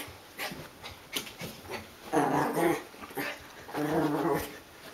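Small poodle growling playfully twice, about two and four seconds in, while rubbing and rolling on carpet to dry off after a bath, with short scuffing and rustling of fur against carpet in between.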